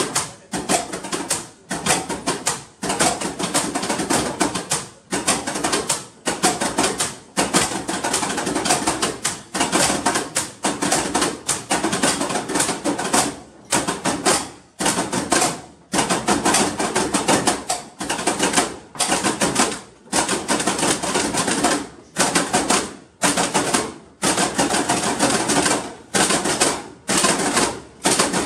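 Toolboxes played as percussion by several people in a rhythmic routine. Fast clacking and rattling comes in phrases, broken by short pauses.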